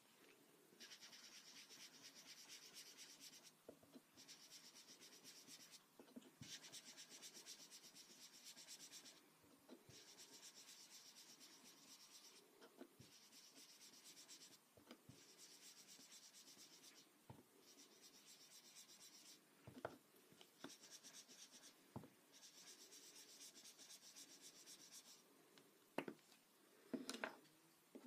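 An inked foam finger dauber rubbed over a paper art card to blend ink. Soft, scratchy rubbing comes in runs of one to three seconds with short pauses between them, and light taps fall in the pauses.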